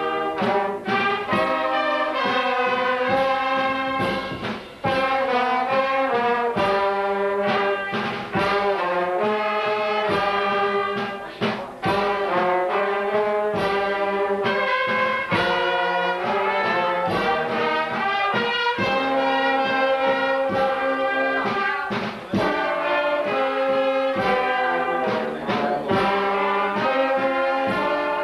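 Brass band music: a melody of held notes, each lasting about half a second to a second, playing steadily with a couple of brief dips.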